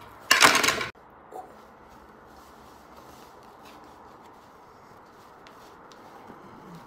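A short, loud burst of noise about half a second in that cuts off suddenly, then faint rustling as a rubber clown mask and a hoodie's hood are pulled on.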